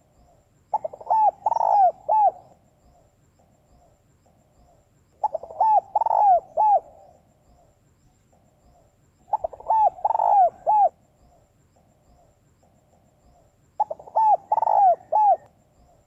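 Female spotted dove cooing: four phrases about four seconds apart, each a quick run of several notes, with fainter short notes between them. It is the call of a hen, used to rouse cock birds.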